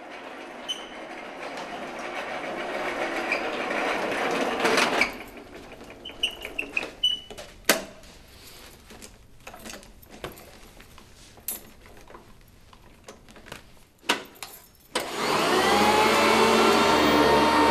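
A swelling rush of noise that cuts off about five seconds in, then scattered clicks and knocks. About fifteen seconds in, an electric floor-cleaning machine switches on and runs loud and steady, with a whining hum of several tones.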